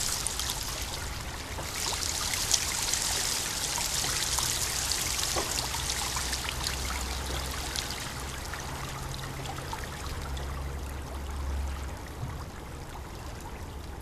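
Water spilling down the ledges of a stepped stone water-curtain wall and splashing into the basin below: a steady rushing splatter, a little softer near the end.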